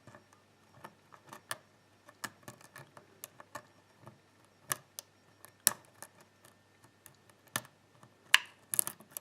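Irregular small metallic clicks and ticks of a lock pick and tension tool working the pins inside a pin-tumbler lock with security spool pins, a few sharper clicks standing out.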